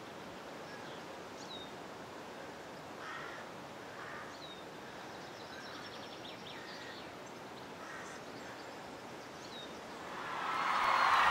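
Birds calling now and then over a steady outdoor background hiss, a few of them short high chirps that drop in pitch. Music fades in near the end.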